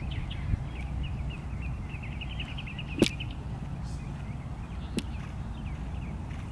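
Outdoor ambience with a steady low rumble and a small bird chirping in quick repeated notes that stop about halfway; two sharp clicks about two seconds apart, the first the loudest.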